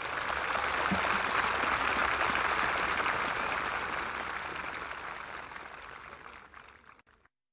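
An audience applauding, a dense patter of clapping that swells over the first couple of seconds, then slowly fades and stops about seven seconds in.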